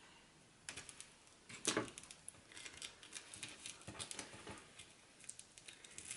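Faint rustling and small clicks of hands handling hook-and-loop tape and pinning it onto terry-cloth fabric, with a louder rustle about a second and a half in.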